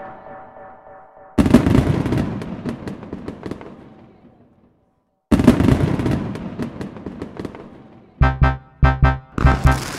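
Fireworks going off: a sudden bang about a second and a half in and another about five seconds in, each followed by a crackling tail that fades away. Music with a steady thumping beat starts near the end.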